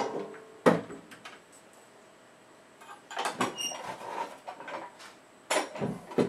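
Handling knocks of a wooden wall board and a steel T-hinge on a wooden bed frame: a sharp knock at the start and another under a second in, scraping with a few metallic clinks around three to four seconds in, and two more knocks near the end as the board is lifted and set on edge.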